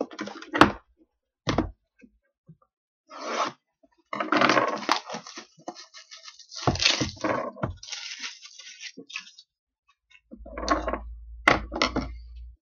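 Unwrapping and opening a sealed trading card box: plastic wrap tearing and crinkling, cardboard scraping, with a few sharp clicks and knocks.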